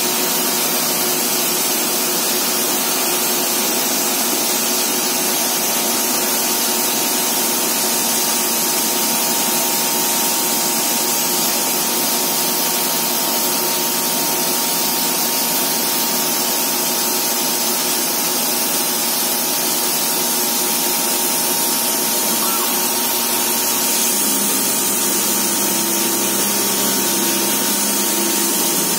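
CNC router spindle running with a steady whine as its bit carves a pattern into a sheet board, over a continuous hiss of cutting. A lower hum shifts about 24 seconds in.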